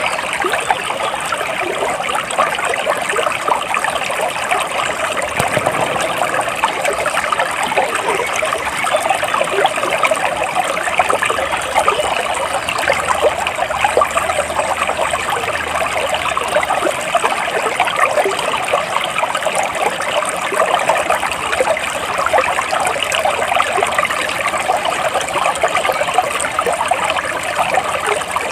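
Water flowing and trickling steadily, like a small babbling stream.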